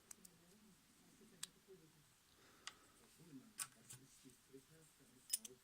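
Near silence broken by a few faint, sharp metal clicks at irregular intervals: small parts of a Necchi sewing machine's upper thread tension assembly being handled and fitted together.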